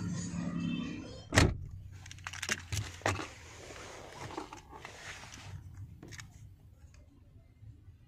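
Tata Sumo Grande's car door shut with one loud knock about a second and a half in, followed by a few lighter clicks and some rustling handling noise.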